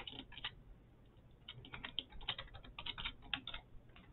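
Computer keyboard keys clicking as a password is typed: a short burst of keystrokes, a pause of about a second, then a longer run of keystrokes.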